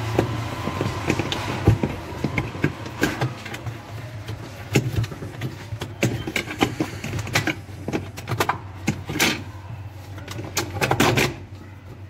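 Irregular clicks, knocks and rattles of a hand working inside the plastic body of a semi-automatic washing machine, unhooking the drain-valve spring. A steady low hum runs underneath.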